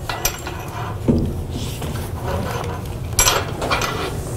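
Fall-protection lanyard hardware and webbing being handled and lowered at the door sill: scattered light metallic clicks and clinks with some rubbing, with a quick cluster of clicks a little past three seconds in.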